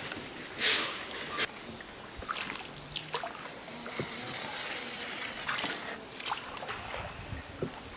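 River water trickling and sloshing against a wooden canoe moving through floating water hyacinths, with scattered small drips and splashes. A faint steady high tone comes in near the end.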